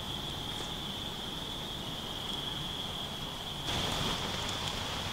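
A steady, high-pitched insect chorus drones on, with a wood campfire crackling softly underneath. About three and a half seconds in, the fire becomes louder, with more crackles and pops over a hiss.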